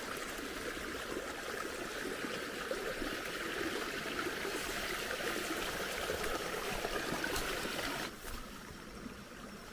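Water trickling steadily through a shallow irrigation ditch between rice paddies. It turns noticeably quieter about eight seconds in.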